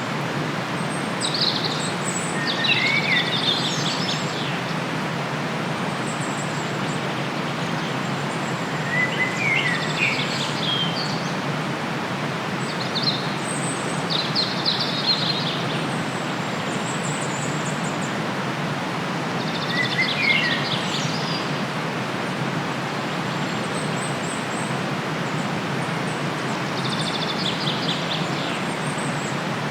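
Birds singing in short chirping phrases that recur every several seconds over the steady rush of a river.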